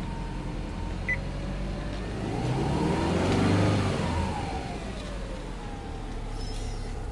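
Subaru Legacy 2.0GT spec.B's turbocharged EJ20 flat-four engine idling, heard from inside the cabin, blipped once to about 3,000 rpm about two seconds in, its pitch rising and then falling back to idle.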